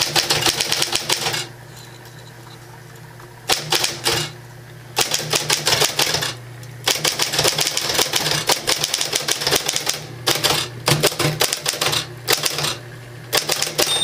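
Smith-Corona Electra 12 semi-electric typewriter typing a sentence: runs of rapid key strikes with short pauses between them, the longest near the start. Under the strikes runs the steady low hum of its electric key-drive motor.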